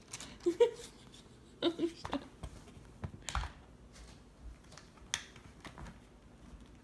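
Scattered plastic clicks and taps of a TV remote control being grabbed and pushed about by a ferret, with sharper clicks about three seconds in and about five seconds in.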